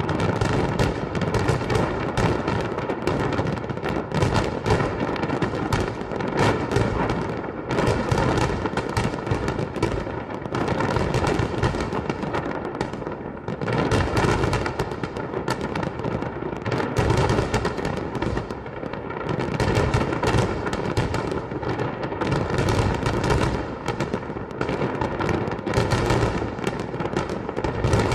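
Fireworks going off in a dense, continuous barrage, many bangs in quick succession with no real pause.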